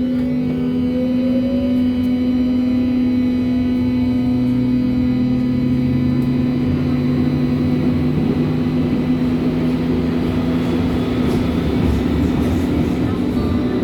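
Berlin U-Bahn H-series (H01) train running between stations: a steady electric drive hum with a whine that rises in pitch over the first couple of seconds as it gathers speed, over the even rumble of the wheels on the track.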